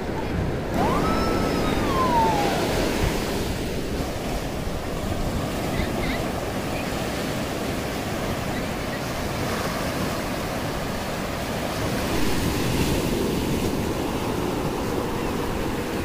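Sea waves breaking on a sandy beach, a steady wash of surf with wind on the microphone. About a second in, a brief call rises and then falls in pitch above the surf.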